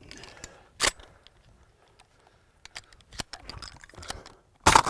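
A single sharp click about a second in, then faint handling noises. Right at the end comes the first shot from a pump-action 12-gauge shotgun fitted with a SilencerCo Salvo 12 suppressor, a sudden sharp report, the first of three rapid shots from the shoulder at thrown clays.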